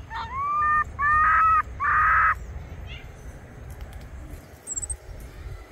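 Baby capuchin monkey calling three times in quick succession: short whistle-like calls that rise and then hold, the third harsher than the first two.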